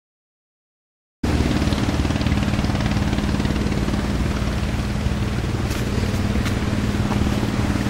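A motor running steadily with a constant low hum, cutting in abruptly about a second in.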